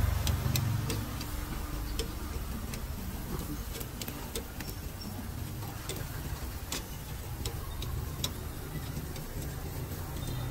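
Low engine rumble of passing street traffic, swelling near the start and again near the end, with scattered light clicks throughout.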